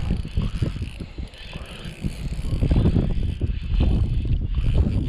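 Spinning reel being wound in, its handle and gears turning, with wind noise on the microphone that grows louder about halfway through.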